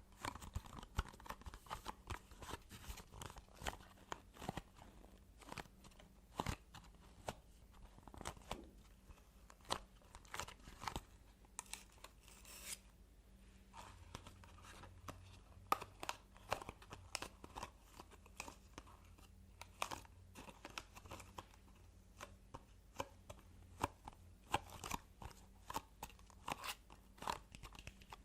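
ASMR tapping and handling: fingernails and fingertips tapping, scratching and rustling on objects in a quick, irregular run of sharp clicks.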